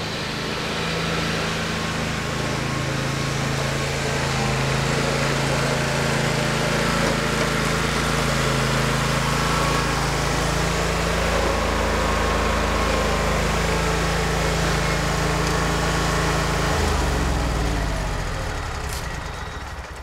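Lawn mower engine running steadily, then shut off about seventeen seconds in, its pitch falling as it winds down.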